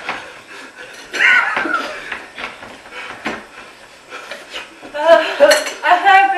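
Chopsticks clicking and clinking against bowls as several people eat noodles, with voices breaking in about a second in and again near the end.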